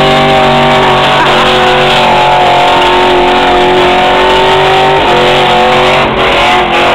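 Muscle car engine held at high revs during a donut burnout, with the spinning rear tires squealing under it. The engine note holds steady, stepping in pitch about a second in, two seconds in and again about five seconds in.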